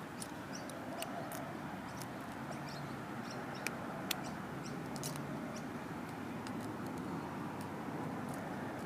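Small metallic clicks and ticks of a lock pick working the pins of an Abus 85/50 brass padlock, scattered irregularly with two sharper clicks a little under halfway through, over steady outdoor background noise.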